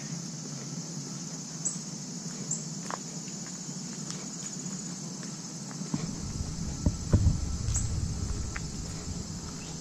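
A steady, high-pitched chorus of insects with the light patter of footsteps on a paved path. About six seconds in, a low rumble comes up, loudest a second later, then fades.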